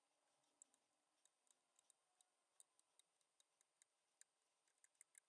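Near silence with scattered faint, sharp ticks, more of them near the end.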